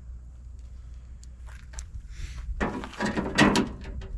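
A short burst of clattering and clicking from hand tools and fasteners being handled while fitting a T30 Torx bit and extension to reinstall the tailgate panel, starting a little over halfway in after a quiet stretch.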